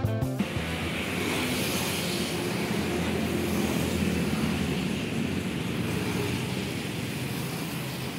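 Background music stops just after the start and gives way to steady road traffic: a low drone of engines under a constant hiss.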